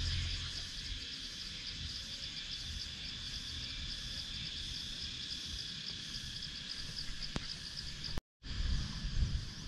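Chorus of insects shrilling steadily in a high band, with a fast even pulse in it, over a low rumble. The sound drops out briefly about eight seconds in.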